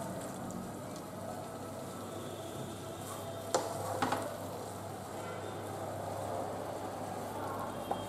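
Wooden spatula stirring and scraping cooked spinach with peas around a non-stick karahi, over a faint steady sizzle. Two sharp knocks of the spatula against the pan come about half a second apart, a little before halfway.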